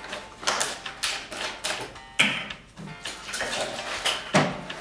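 Liquid glugging as it is poured from a plastic jug into a plastic cup, in uneven surges.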